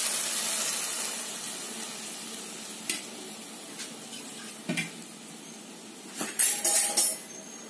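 Liquid sizzling as it hits a hot pan of ghee-roasted coconut, the hiss dying away. Metal tumbler clinks against the pan a couple of times, then several clinks close together near the end.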